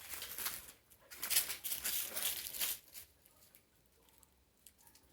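Rustling, crackling noise in irregular bursts for about three seconds, then it goes nearly quiet.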